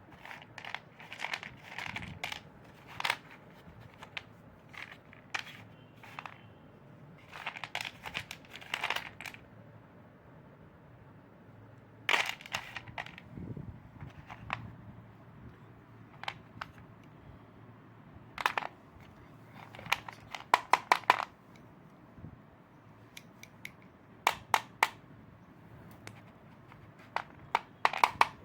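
Something crisp being crushed: clusters of sharp crunches and crackles with short pauses between them, including quick runs of several snaps in a row.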